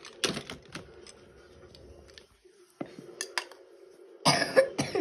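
Plastic Lego Duplo bricks clicking and clattering as they are handled, a few separate sharp clicks over a faint steady hum, with a short louder noisy burst a little after four seconds in.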